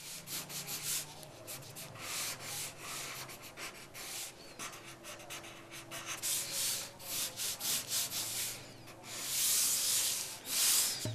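Pencil scratching over paper in quick, irregular sketching strokes, with a longer, louder stroke near the end.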